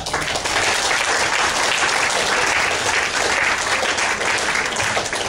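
A roomful of people applauding, starting suddenly as a speech ends and holding steady.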